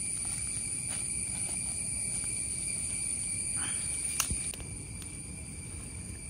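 Insects trilling steadily in several high, unbroken tones, the highest tone dropping out a little past the middle. A single sharp click comes about four seconds in.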